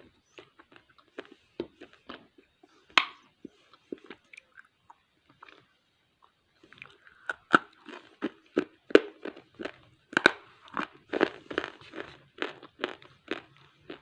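Close-up crunching and chewing of hard baked clay pieces. Scattered small crunches come first, then a pause of about a second, then a dense run of louder, sharper crunches for the second half.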